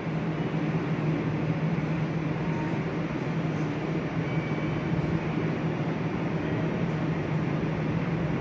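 Electric trains standing at a station platform, giving off a steady low hum from their onboard equipment that does not change.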